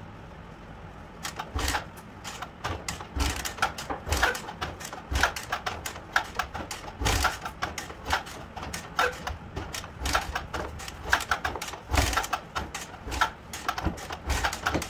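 A single-cylinder Bajaj motorcycle being kick-started again and again without catching: a dull thump with each kick and a clatter of clicks from the kick lever and engine between them. The engine will not fire after standing unused for days, even with its spark plug cleaned.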